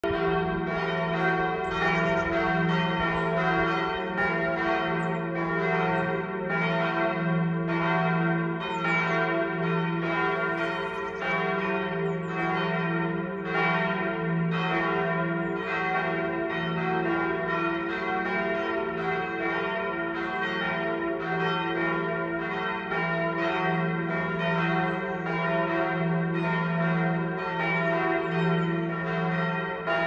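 Full peal of the Liebfrauenkirche's church bells, with all the bells swinging together. Strokes of several pitches overlap in a steady, uneven stream of about one to two a second, each ringing on beneath the next.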